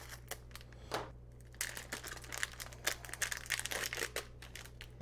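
Packaging crinkling and rustling as it is handled and opened, an irregular run of short crackles.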